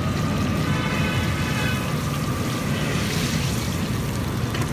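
Battered banana fritters sizzling steadily in a large wok of hot, deep oil, a continuous bubbling crackle of deep-frying. The pieces are on their second frying after being dipped in batter again.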